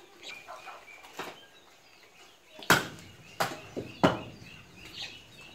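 Beef being chopped with a heavy blade: a few light knocks, then about halfway through three loud, sharp chops roughly two-thirds of a second apart, followed by a couple of weaker ones.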